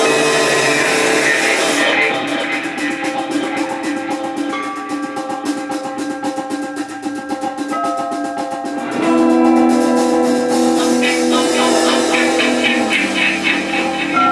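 Live experimental ensemble music from electric violin, electric guitars and drum kit: layered held tones with a fast, even ticking pulse through the middle, and new low held notes coming in about nine seconds in.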